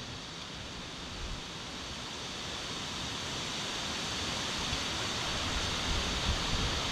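Wind blowing steadily, a rushing hiss that slowly grows louder, with a few low gusts buffeting the microphone near the end.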